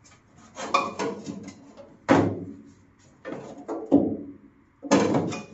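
A loose sheet of steel being moved and pressed against the underside of a car body. It makes a series of scrapes and clanks, about five in all, the loudest about two and four seconds in.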